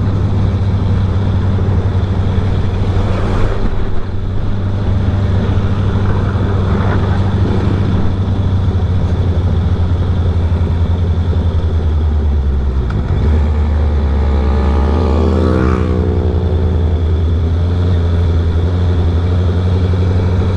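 Honda CB650R's inline-four engine running through an aftermarket R11 full exhaust while riding, a steady engine note with wind noise over it. The engine note shifts lower about two-thirds of the way through.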